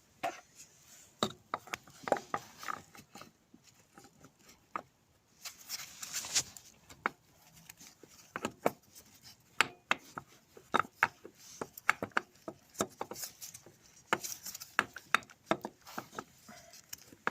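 Repeated knocks, clicks and scraping as a Kawasaki ZZR600 starter motor is worked and wiggled into its place in the engine, with a longer scrape about six seconds in.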